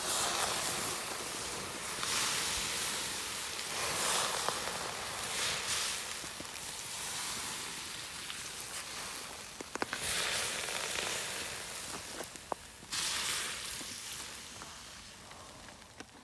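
Wood campfire burning with a steady hiss and a few sharp crackling pops.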